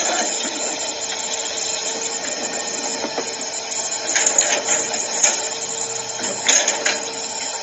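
Water running steadily while a muddy toy excavator is washed, over a constant motor-like hum, with a few short knocks and splashes about four to seven seconds in.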